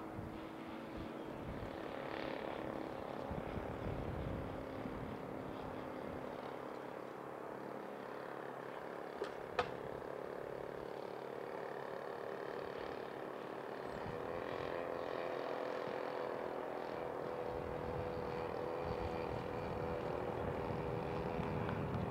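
Electric ducted fan of an HSD Super Viper 105 mm RC jet whining steadily through a landing approach and touchdown, growing louder toward the end. Two sharp clicks a little after nine seconds in.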